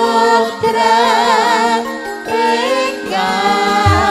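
Campursari band music: a woman sings a Javanese langgam melody with a strong wavering vibrato, over sustained keyboard chords and a low drum struck every second and a half or so.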